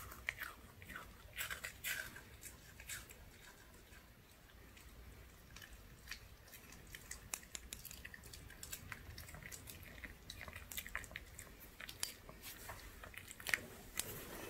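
A Pomeranian chewing and biting a soft dog-treat green onion pancake, close-miked: irregular small crunches and mouth clicks, thinning out for a few seconds about three seconds in, then resuming; it licks its lips near the end.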